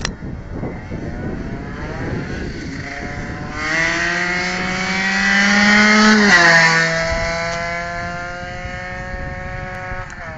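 Aprilia RS two-stroke motorcycle with a Gilardoni exhaust running at full throttle. The engine note climbs in pitch as it grows louder, drops sharply about six seconds in, then fades away.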